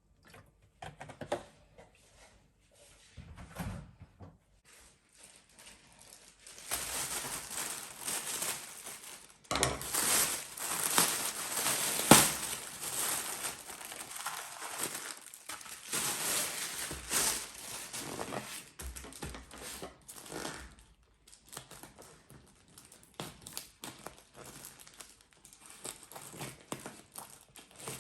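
Crinkling and rustling handling noises with light knocks and ticks, thickest through the middle stretch and sparser near the start and end.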